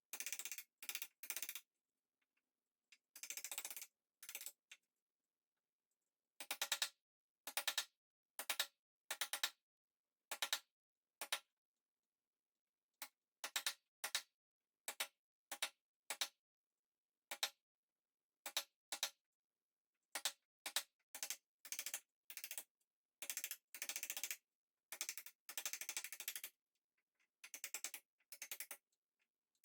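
Rhythmic scraping strokes of a hand tool on pine, each lasting about half a second, with dead silence between them.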